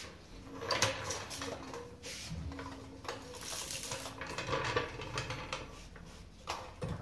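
Steel floor jack being rolled across a concrete garage floor and set under a car, its wheels and handle clattering and clanking in a string of short knocks.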